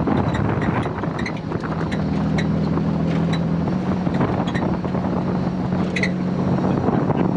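Supercharged GM 3800 V6 (L67) of a Pontiac Fiero race car running at steady cruising speed, its engine note shifting slightly in pitch a couple of times. Heard from the cockpit with no windshield, with wind rushing over the microphone.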